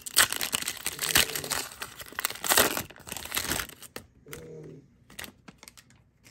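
Foil trading-card pack being torn open and crinkled by hand, a dense crackling that lasts about three and a half seconds, then dies down to a few light handling clicks.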